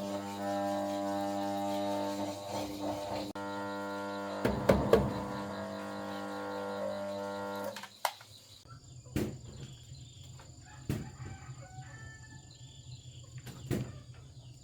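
Background music of steady held chords that cuts off about eight seconds in. It gives way to a quieter stretch of a low hum, a few sharp knocks and chickens clucking.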